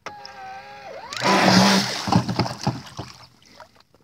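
Radio-controlled electric jet boat on a 4S battery: its motor whines at a steady pitch, then the throttle opens about a second in and the jet pump churns and sprays water loudly for about two seconds before easing off.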